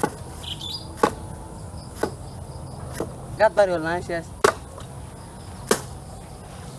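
A wooden club or plank knocking the end of a bamboo stick, driving it through bundled banana trunks: six sharp knocks, about one a second. A brief wavering voice-like call comes in the middle.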